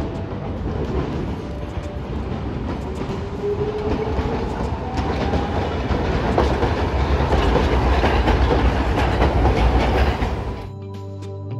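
A Hiroshima Electric Railway 3800-series three-section articulated tram runs past over curved street track and points. Its wheels clack over the rail joints, and the rumble builds to its loudest as the cars go by, with a faint rising whine early on. The sound cuts off sharply near the end to music.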